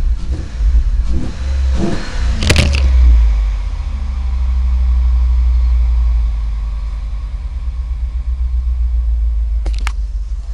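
Cadillac STS engine running, uneven and revving in the first few seconds, then settling to a steadier lower run; this is the engine with a misfire traced to bad piston rings. A sharp click sounds about two and a half seconds in, and another near the end.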